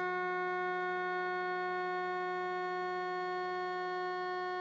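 Steady electronic signal tone of the chamber's electronic attendance system, one held pitch with overtones, sounding during the countdown for members to register their presence.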